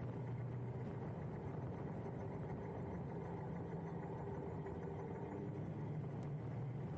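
Steady wind and road noise with a low steady hum from riding a Huck Cycles Stinger electric moped along a paved road.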